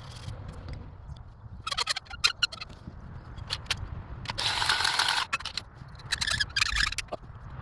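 Hard objects being handled: clusters of clicks and rattles twice, with a scrape lasting about a second in between.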